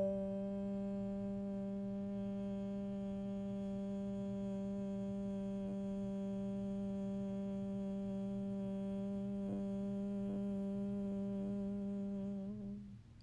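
A single long hummed note from a person's voice, held steady at one low pitch with many overtones. It wavers briefly and fades out near the end.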